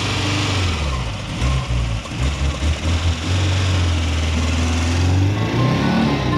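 A vehicle engine running, its note shifting up and down in steps and rising near the end.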